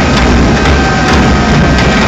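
Loud, dense crowd noise in an arena, with drums beating.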